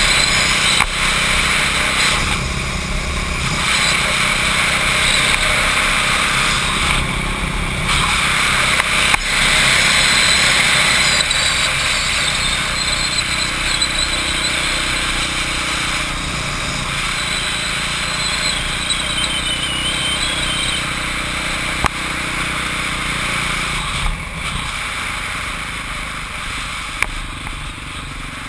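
Onboard sound of a motorcycle riding a circuit lap: the engine running under throttle, with heavy wind rush over the mounted camera. The noise eases briefly a few times.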